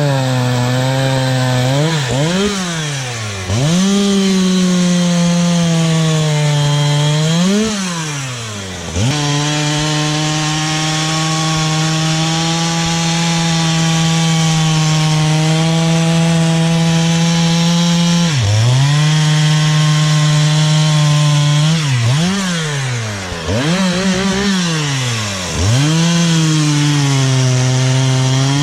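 Husqvarna 365 two-stroke chainsaw running at high revs, cutting into a big log. The engine pitch holds steady for long stretches and dips sharply and climbs back again about eight times.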